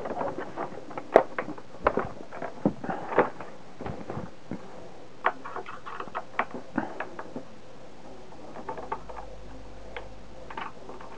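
Irregular clicks, knocks and rustles of computer hardware being handled: cables and a Plus One expansion being unplugged from an Acorn Electron and its motherboard moved about. The clicks come thick for the first several seconds, then thin out to a few.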